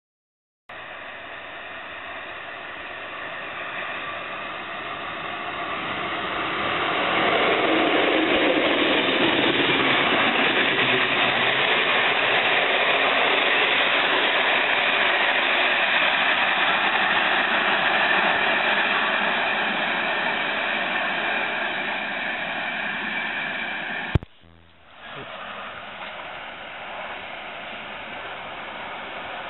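Passing train: a steady rush of wheels on rails that builds over several seconds, holds loud, then slowly fades. After a sharp click and a brief drop near the end, a second train's noise rises as it approaches.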